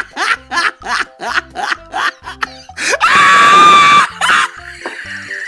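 Background music with a quick, choppy beat, then about three seconds in a loud train horn blast of several steady tones at once, lasting about a second.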